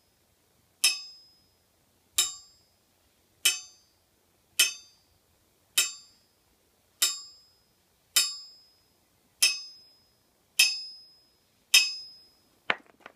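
A small steel ball dropped onto the face of a steel anvil again and again, about once every 1.2 seconds, ten times. Each drop lands with a sharp clink and a clear, bright ring that dies away. This is the anvil's ring in a rebound test: a ringing face marks a good steel anvil, where cast iron would give a dull thunk. A short click without ring comes near the end.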